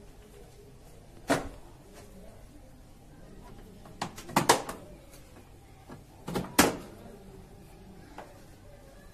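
Sharp plastic clicks and knocks as a Symphony air cooler's side grille panel is pressed onto the body and its locks snapped back into place: one click, then a quick cluster of several, then two more a couple of seconds later.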